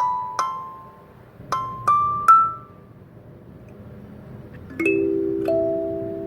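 A 17-key kalimba's metal tines plucked one at a time in a rising run, each note ringing out. After a short pause, several low tines ring together as a chord, and one higher note follows.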